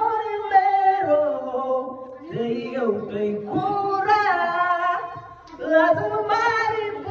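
A young man singing unaccompanied in a high voice, drawing out long, wavering held notes in several phrases with short breaths between them.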